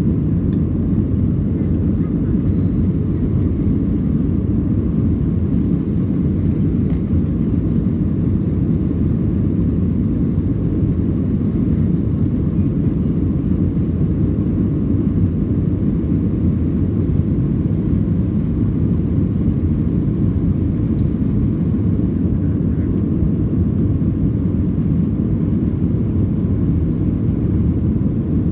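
Steady, deep roar of a Boeing 737 heard inside the passenger cabin during its climb after takeoff: engine noise and rushing air, with no change in level or pitch.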